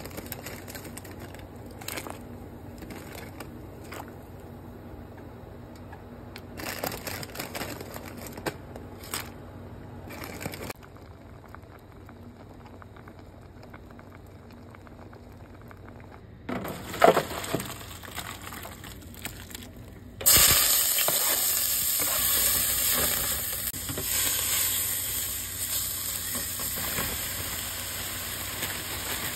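A pot of water bubbling at the boil, with scattered clicks. About two-thirds of the way through, a loud sizzle starts abruptly as chicken and broccoli go into a hot pan, and frying carries on from there.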